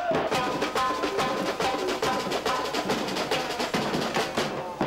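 A samba bateria playing: metal-shelled surdo drums and other percussion beating a dense, steady samba rhythm, with a pitched melodic line sounding over the drums.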